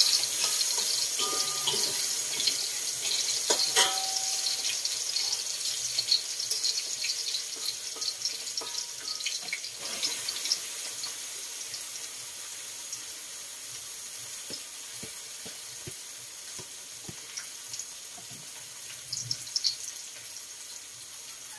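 Garlic frying in hot oil in a steel wok, a steady sizzle that slowly fades, with a few clinks of a metal spatula against the wok.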